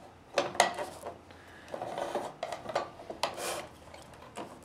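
Metal clicks and rasping scrapes from a busway joint installation tool being worked by hand, forcing solid copper blades into roll-formed copper in a Starline track busway joint. A few sharp clicks come first, then rough scraping, the loudest scrape about three and a half seconds in.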